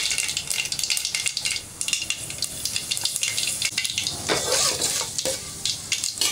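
Mustard and cumin seeds sizzling and crackling in hot oil in a stainless steel pot: the tempering stage, with the seeds spluttering. From about four seconds in, a slotted steel ladle stirs them.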